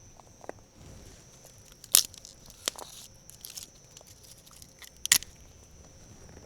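Dry kindling sticks being laid and shifted on a campfire, crunching, with sharp snaps about two and five seconds in.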